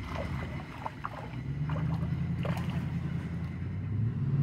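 A low, steady engine-like hum that grows louder, with brief splashing on the river's surface near the start.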